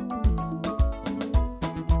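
Upbeat gospel dance music: a steady drum beat, just under two beats a second, under a keyboard melody.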